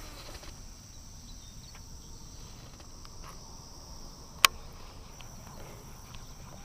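A steady, high-pitched chorus of insects in the grass around the pond, with one sharp click about four and a half seconds in.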